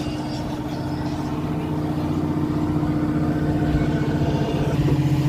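Electric fishing reel motor winding in line with a hooked hairtail: a steady low motor hum that grows slowly louder.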